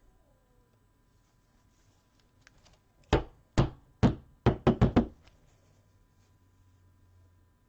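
Seven sharp knocks about three seconds in: three spaced about half a second apart, then four in quick succession.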